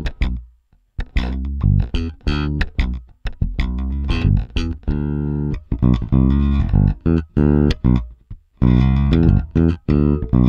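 Fender Jazz Bass electric bass guitar played solo: phrases of short, sharply attacked notes with a deep low end, broken by brief pauses about a second in and again near the end.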